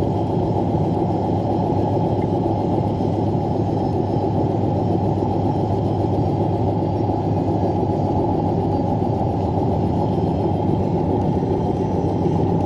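Steady engine and road noise heard inside a vehicle's cabin while cruising at about 40 mph, an even low rumble that does not change.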